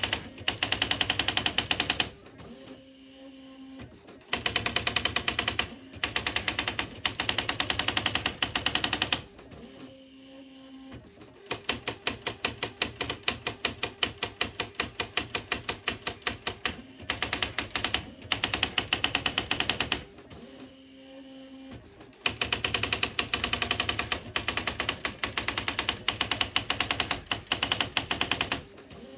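Smith Corona SD 680 electronic typewriter typing in long runs of rapid, evenly spaced key strikes. The runs are broken about four times by pauses of a couple of seconds, with a steady low hum, as the carriage returns.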